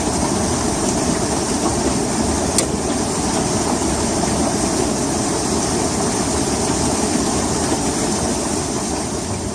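Hailstorm: heavy rain and hail coming down hard in a dense, steady rush, with one sharp crack about two and a half seconds in.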